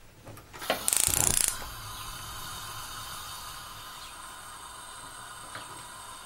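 Gas stove burner being lit: a click, then a short loud rattling burst of ignition about a second in, followed by the steady hiss of the burning gas under the frying pan.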